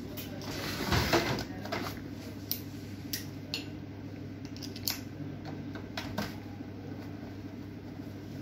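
Knocks and clicks of an HP LaserJet 1020 printer's plastic casing being handled while its side cover is worked open with a screwdriver. There is one loud knock about a second in, then scattered light taps and clicks over a steady low hum.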